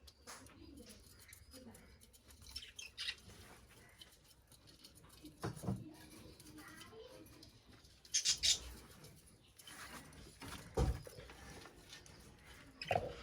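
Caged budgies chirping now and then in short high calls, with a few sharp knocks, like movement against the cage or perches.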